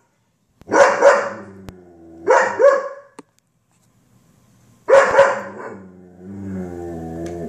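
German Shepherd barking: a few sharp barks in short groups, then a longer, drawn-out low vocal sound near the end.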